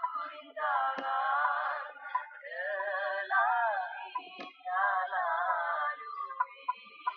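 A woman singing in long phrases with a wavering pitch. Near the end the singing breaks into short notes and a few clicks.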